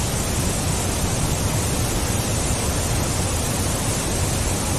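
Steady, even rushing noise like a constant hiss or wind, spread across all pitches, with no distinct events or tones.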